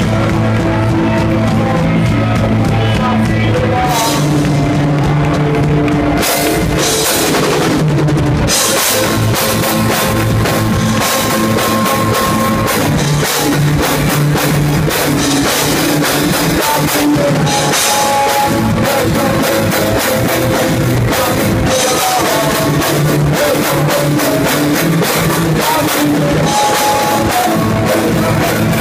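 Live rock band playing loud: electric guitars strummed over a driving drum kit.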